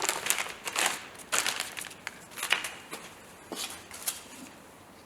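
Crinkling and rustling of packaging, with light clicks and taps, as a new replacement side-light lens is unwrapped and handled. The noises come thick at first and thin out in the second half.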